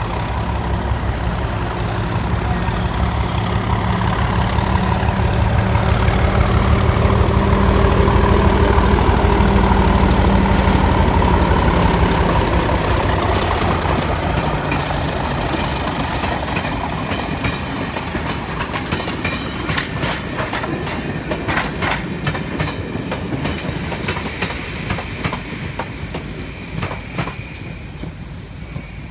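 Class 37 diesel locomotive's English Electric V12 engine working under light power as it passes, growing louder, then fading with its note dropping. The train's wheels then click rapidly over rail joints as the coaches go by, and a high steady tone comes in near the end.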